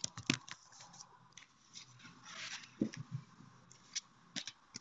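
Faint handling noises of someone rummaging for a bank card: scattered clicks and knocks, a brief rustle about two seconds in, and a couple of soft thumps.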